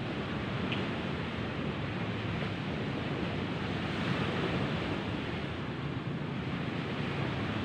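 Steady rushing noise of wind and sea surf, swelling slightly around the middle.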